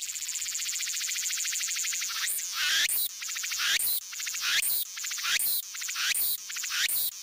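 Insects buzzing: a high, fast-pulsing trill. From about two seconds in it swells and dips in repeated swoops a little under a second apart.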